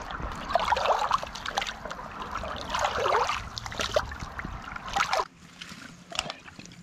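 A soft collapsible water bag for a Katadyn BeFree filter being filled by holding it under a creek's surface, water gurgling and bubbling into it in two louder swells, over the steady rush of the stream. About five seconds in the sound drops away to quieter handling with a few small clicks.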